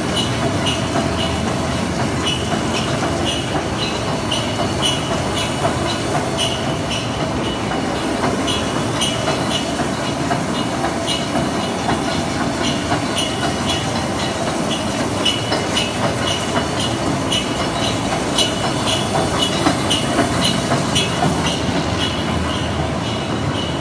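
A two-colour, 100 cm printing press running steadily: a continuous mechanical clatter with a fast, regular clicking over a steady hum.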